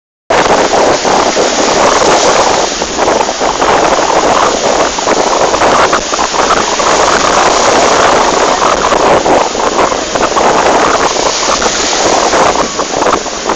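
Lake Tanganyika waves breaking and washing up a sandy shore, with strong wind buffeting the phone's microphone. The sound cuts in just after the start, out of a moment of silence.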